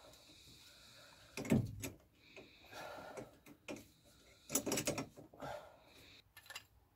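Knocks and clatter of a brake caliper being handled while the brake pipe is fitted into it: one loud knock about a second and a half in, then a cluster of clattering knocks a few seconds later, with softer rustling between.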